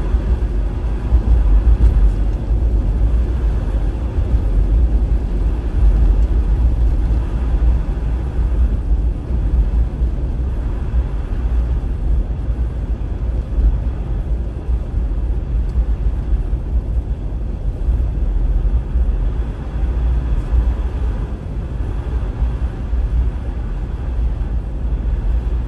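Car being driven, a steady low rumble of engine and tyres on the road.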